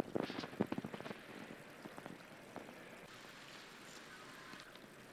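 Quick crackling rustle of a woven plastic sack, a rapid patter of small crackles lasting about a second, then only a faint steady hiss.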